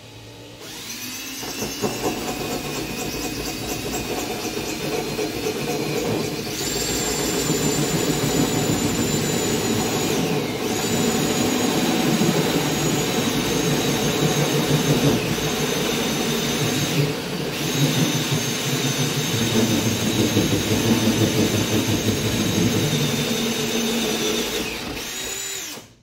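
Cordless drill driving a 6-inch carbide grit hole saw through a drywall ceiling: a steady motor whine over the grinding of the grit cutting the drywall. It speeds up about six seconds in, eases off briefly twice, and stops near the end.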